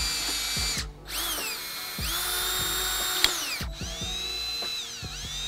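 Cordless drill spinning a 3/32 inch twist bit through aluminum channel. It runs in three bursts with short stops between them, rising in pitch as it spins back up, and its whine sags for a moment near the end.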